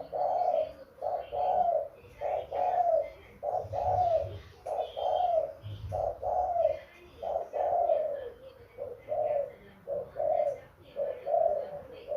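Young dove, about nine months old, cooing in a steady run of short arched coos under a second apart, the call it gives with its circling-walk display.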